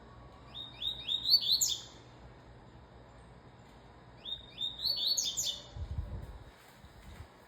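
Double-collared seedeater (coleiro) singing two short song phrases about three seconds apart. Each phrase is a quick run of whistled notes ending on a higher note. A brief low rumble follows the second phrase.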